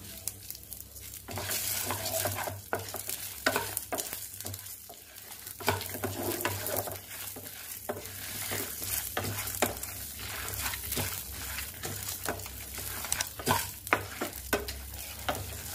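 A spatula stirring and scraping chana dal, urad dal, dried red chillies and mustard seeds around a metal pan, with the lentils rattling and sizzling in a little hot oil. The frying hiss comes in about a second in, under many short irregular clicks and scrapes.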